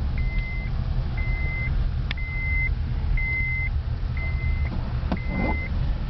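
Car driving slowly on a dirt road: a steady low rumble of tyres and engine. Over it, an electronic warning beep sounds six times, about once a second, each about half a second long, with two sharp clicks in between.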